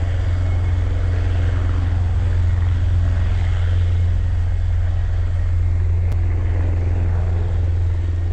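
EC725 (H-36) Caracal military helicopter flying low after takeoff: a steady, loud deep rotor beat with turbine noise over it.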